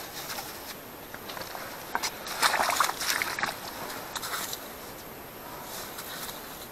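Hands working in the slushy water and snow of an ice-fishing hole: irregular sloshing and crunching in a few short spells, the loudest about two to three seconds in.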